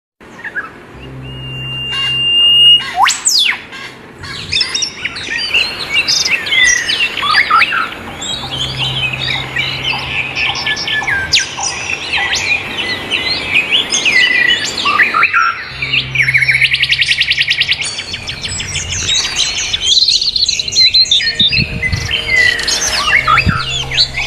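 Dense songbird chorus: several birds chirping, whistling and trilling over one another with no pause, as in a 'masteran' recording used to teach caged songbirds their calls. A single held whistle sounds about two seconds in, and a fast, even trill comes a little past the middle.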